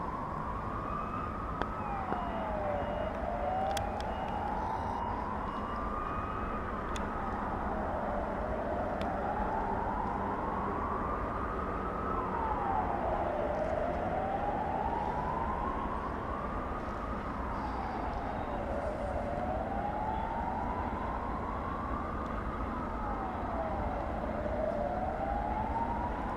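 A wailing siren, each wail rising slowly in pitch and dropping back quickly, repeating about every five and a half seconds, over a low steady rumble.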